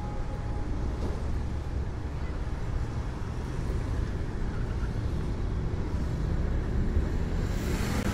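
Car driving: a steady low rumble of road and engine noise, with a brief rise of hiss near the end.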